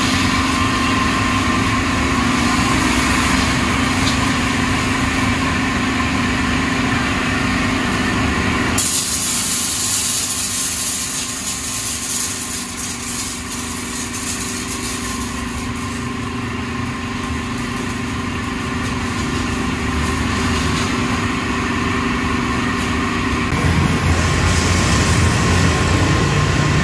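Machinery running steadily with a constant hum. The sound changes abruptly about nine seconds in and again near the end.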